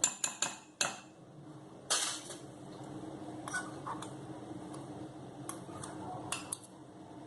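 A spoon clinking and tapping against a mug while butter is added: a quick run of taps in the first second, another about two seconds in, then light scattered clicks.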